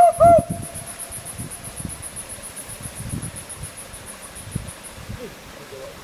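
A bird calls a rapid series of loud, clear notes, about four a second, ending about half a second in. Then a high, evenly pulsing insect trill continues until about five seconds in.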